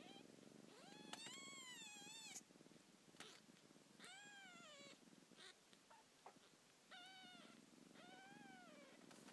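Five-day-old kitten meowing: a string of about five high, arching calls, the longest just over a second in, over a low steady purr.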